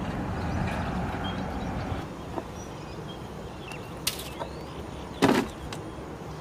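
A green plastic tub knocking and clattering on riverbank stones as it is set down, loudest a little after five seconds in, after a few lighter knocks. Earlier a low rustling noise dies away about two seconds in, and faint bird chirps are heard.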